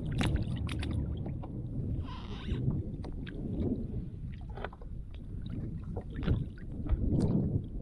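Wind buffeting the microphone as a low rumble, with scattered small knocks and clicks from handling on a kayak and a brief hiss about two seconds in.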